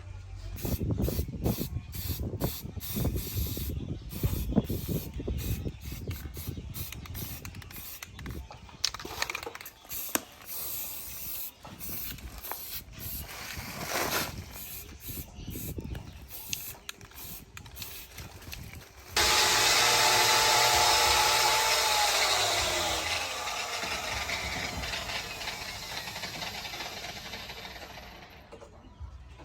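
Workshop sounds during knife making: irregular knocks and clatter of metal and tools. About two-thirds of the way in, a loud hiss starts suddenly, with a whine that falls in pitch and fades out.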